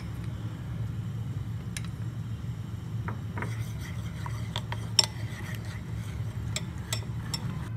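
Metal spoon stirring custard powder into milk in a glazed ceramic bowl, scraping and clinking against the bowl, busier from about three seconds in, with one sharp clink near five seconds. A steady low hum runs underneath.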